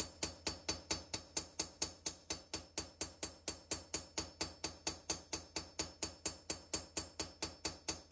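Carbide straightening hammer tapping a hardened Magnacut steel knife blade resting on a bench anvil: light, even taps about five a second, each with a high metallic ring. The taps stretch the steel along a line to pull out the blade's banana-shaped warp.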